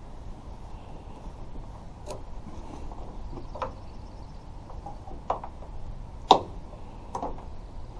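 Sharp clicks and knocks from fitting a clamp-on tailgate lock over the tailgate hinge bolt: five separate strikes spread a second or so apart, the loudest about six seconds in.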